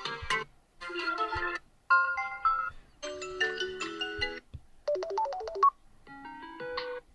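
Samsung Galaxy A54 5G default ringtones previewed in quick succession. About five short electronic melodies play one after another, each cut off after about a second, with brief pauses between them.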